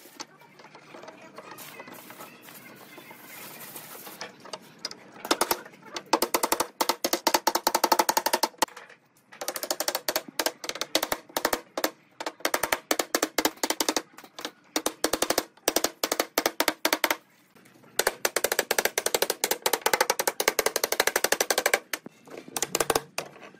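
Claw hammer tapping rapidly on notched wooden strips, knocking the slats down into each other's notches to lock a slatted lattice together. The taps come in quick runs with brief pauses between them.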